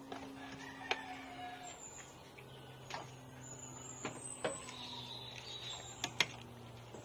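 Scattered light knocks and clinks against a stainless steel pot as chopped pechay is tipped in from a cutting board and then stirred with a metal ladle, two sharper clinks close together near the end, over a steady low hum.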